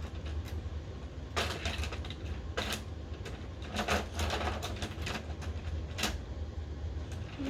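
Thomas and Friends toy trains clicking and clattering on plastic track, with irregular sharp clicks over a steady low hum.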